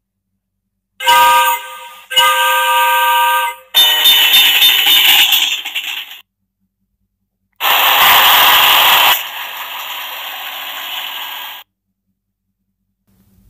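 Electronic sound buttons of a children's vehicle sound book playing short recorded sound effects one after another. One is a steady tone-rich sound lasting about a second and a half. After a pause of about a second and a half comes a loud clip that drops to a quieter steady sound and stops near the end.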